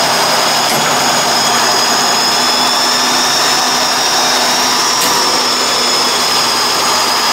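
Mercedes-Benz Unimog's diesel engine running steadily as the truck crawls slowly over rough ground, with a steady high whine on top of the engine sound.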